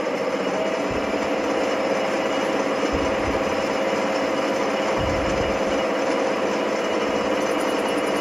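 Small metal lathe running with the chuck spinning while the tool turns a small metal part. A steady whine over a mechanical hum, with a few low thuds.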